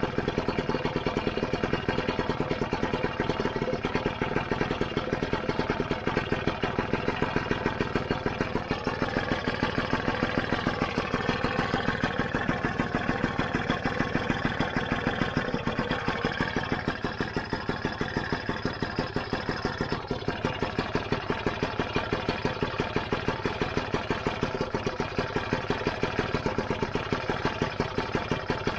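Lambretta GP scooter's single-cylinder two-stroke engine, freshly rebuilt, idling steadily after being kick-started.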